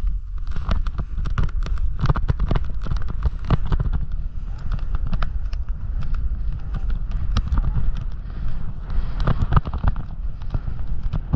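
Snowboard riding over chopped-up and packed snow: a steady low rumble of the board running, with many irregular clattering knocks as it chatters over bumps.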